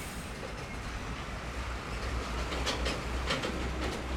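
Heavy diesel trucks, an Isuzu Giga box truck among them, rumbling across a railway level crossing. A run of sharp clacks comes about two and a half to four seconds in as the wheels go over the rails.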